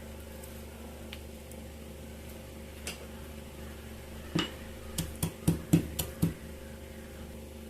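Kitchen utensils knocking and clinking while coriander seeds are measured out: one click about three seconds in, then a quick run of about seven sharp knocks over the next two seconds, over a steady low hum.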